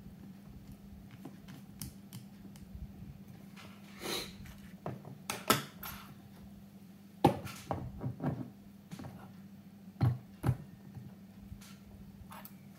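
Small clicks and knocks from handling and reassembling a model locomotive on a tabletop, its parts tapping together and against the table. Most are light, with the sharpest knocks about halfway through and two more near the end, over a steady low hum.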